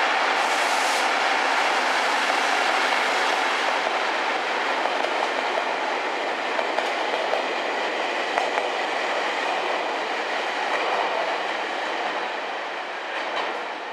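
Locomotive-hauled train of an EF65 electric locomotive and unpowered ex-Tokyu 8090 series cars running past a station platform. The wheels run steadily on the rails, and the sound fades near the end as the train moves away.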